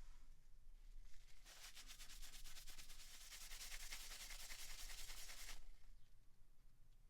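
Rapid rubbing strokes on a hard surface, as in wiping or scrubbing during PC work. They start about a second and a half in and stop about a second and a half before the end.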